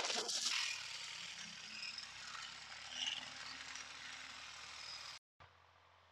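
Outdoor garden ambience: a steady hiss over a faint low hum, with a few brief faint high chirps. About five seconds in it cuts off abruptly to a quieter, steady background tone.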